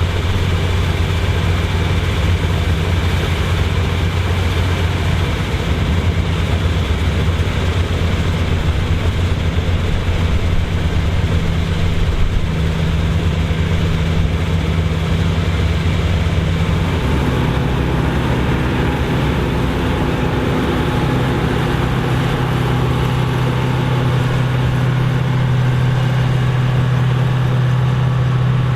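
Vintage combine running steadily under load while harvesting corn, with a dense mechanical clatter over the engine. About two-thirds of the way through, the engine note steps up to a higher pitch.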